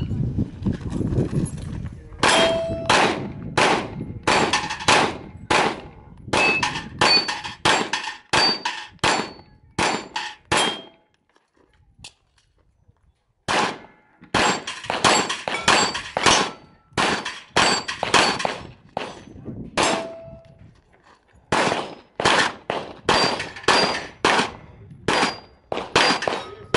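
Canik TP9SFx 9mm pistol firing strings of rapid shots at steel plates, many hits answered by a short metallic ring. The shooting stops for about two seconds near the middle, then resumes.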